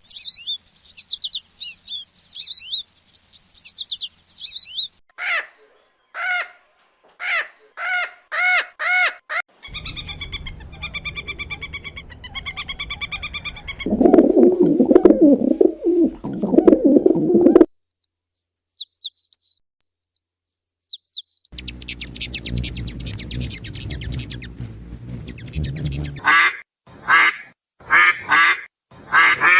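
A string of different bird calls in short back-to-back clips: rapid high chirping, then spaced repeated calls, a low-pitched stretch, more high chirps, a noisy stretch with a fast rhythm, and a closing run of loud, evenly spaced calls.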